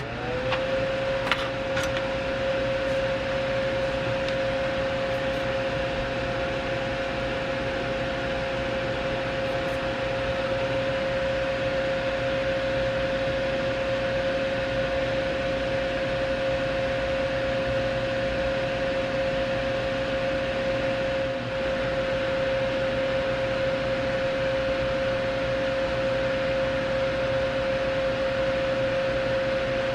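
Electric fan running steadily, a constant whirr of moving air with a steady hum in it, reaching full speed in the first moment after being switched on. A couple of faint clicks near the start.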